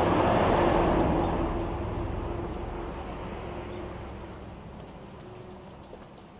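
A vehicle passing by, loudest about half a second in and fading away over the next few seconds. Near the end a bird gives a quick run of short chirps.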